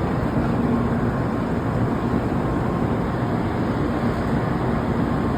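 N700-series Shinkansen train making a steady, even running noise with no distinct events.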